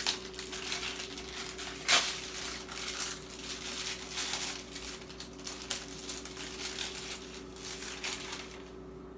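Crinkling and rustling handling noise with scattered small clicks and a sharp knock about two seconds in, as a store-bought pie crust is unwrapped and laid into a pie pan. The noise dies away near the end.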